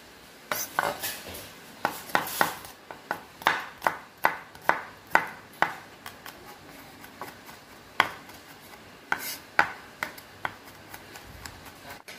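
Kitchen knife chopping on a cutting board: sharp single chops, a steady run of about two a second in the middle, with scattered chops before and after.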